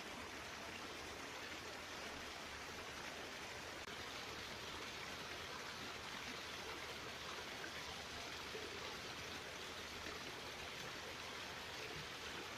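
Steady rush of flowing water in a small stream running through rice fields.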